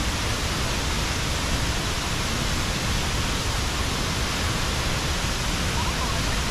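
Steady roar of Ban Gioc waterfall's falling water, an even rushing noise that holds at one level throughout.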